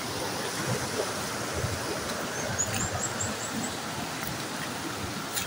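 Steady rush of falling water from a waterfall, with a short run of about seven high chirps about two and a half seconds in.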